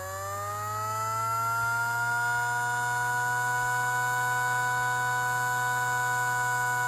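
Custom dual-tone 16T siren, built like a Federal Signal 2001-SRN, winding up: its chord rises in pitch, levels off about two seconds in and then holds a steady wail, with a low hum underneath.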